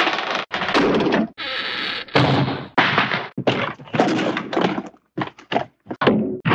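Hanna-Barbera cartoon door sound effects played back to back: a quick series of door bangs and thuds, each well under a second long, with a cluster of short clicks about five seconds in.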